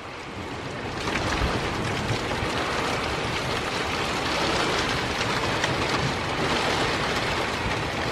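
Heavy wind-driven rain of a severe thunderstorm, a steady dense hiss that grows louder about a second in.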